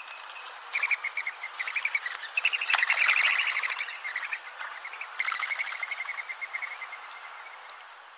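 Mourning dove's wings whistling as it flushes: a rapid, high, twittering flutter that starts about a second in, is loudest around three seconds in, then trails off. The noise tells other doves it is time to escape.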